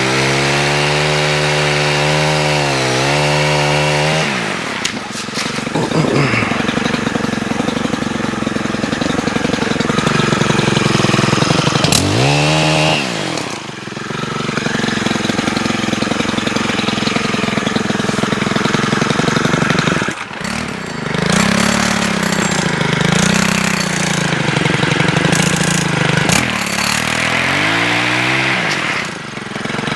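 Stihl HT103 pole saw's small 4-MIX engine running at high throttle, its pitch bending up and down as the chain cuts, easing off and revving back up several times.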